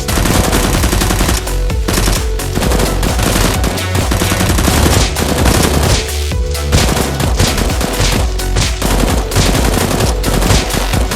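Rapid automatic gunfire sound effects, shots in quick dense bursts, over a steady electronic music beat.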